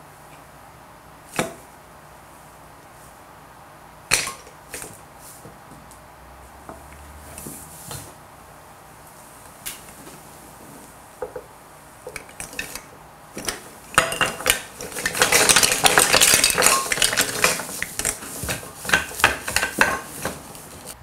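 Small hard objects clicking and knocking against each other. First come a few separate knocks, then several seconds of dense clattering and rattling near the end, as if a handful of pieces were being handled or shuffled.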